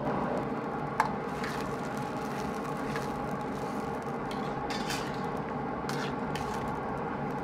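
Water boiling hard in a wok as oyster mushrooms blanch: a steady bubbling hiss. Scattered clinks and scrapes of a metal ladle and a perforated strainer against the wok cut through it, the sharpest about a second in.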